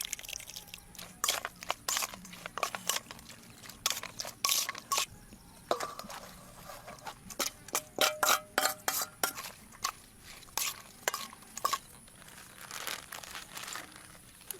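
Kitchen utensils clinking and knocking against a dish in quick, irregular strokes as sliced sea snail meat is mixed with fish sauce.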